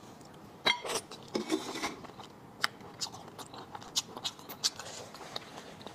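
Close-miked eating sounds of a person chewing shellfish: wet mouth clicks and smacks scattered through, the loudest just under a second in.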